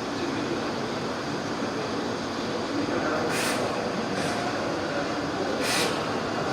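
Salvagnini fibre laser cutting machine running with a steady mechanical noise, with three short hisses about halfway through and near the end.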